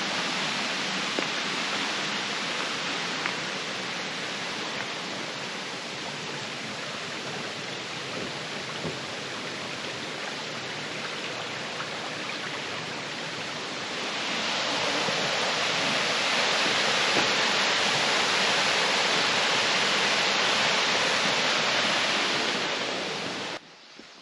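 Steady rushing water. It grows louder about two-thirds of the way through, then cuts off suddenly near the end.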